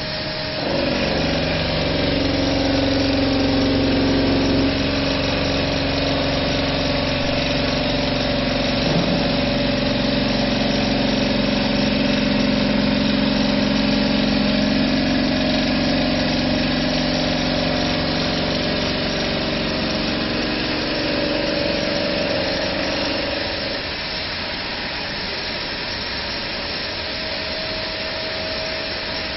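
CNC bridge saw running and working stone, a steady machine hum with several held tones. The sound gets louder about a second in and eases off a little about 24 seconds in.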